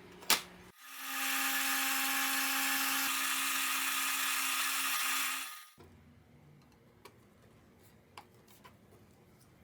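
Electric power tool switched on with a click, running steadily at speed for about five seconds, then stopping. A few light clicks follow.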